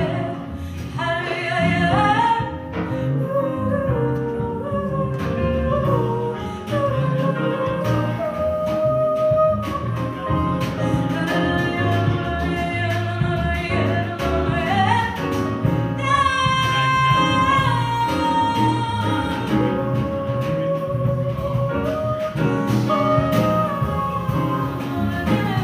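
Live soul-jazz band playing: a woman singing over a horn section of saxophones and trombone, with piano, bass and a drum kit keeping time.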